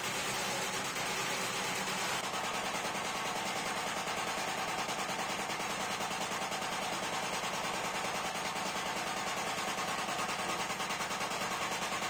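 Motor-driven punching machine hammering rapidly on a brass plate that is turned under its punch, stamping rings of decorative dots into the rim: a fast, even mechanical rattle.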